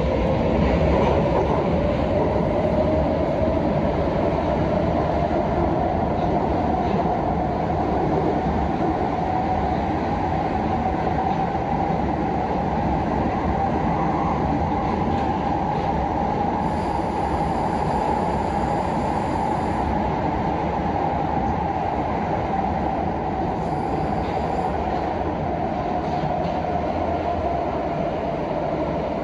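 Prague Metro Line A train running through the tunnel between stations, heard on board: a steady rumble of wheels on rail with an electric whine that rises in pitch over the first couple of seconds, then holds steady.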